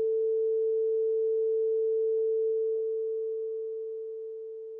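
Simulated buzzer of the PICSimLab microwave-oven program sounding one long, steady, mid-pitched tone, the signal that the cooking time is up. It weakens slightly over the last couple of seconds.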